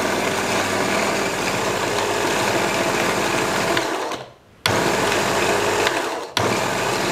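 Cheap unbranded electric burr coffee grinder running and grinding coffee beans into a cup. The grinding is smooth, without the 'grrrr' of burrs scraping, the sign that the recalibrated burrs are set fine but not touching. The sound cuts out for about half a second a little past four seconds in, then resumes.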